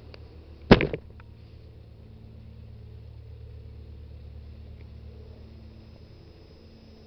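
Steady low engine drone, swelling slightly and then fading, with one loud, sharp knock close to the microphone about a second in.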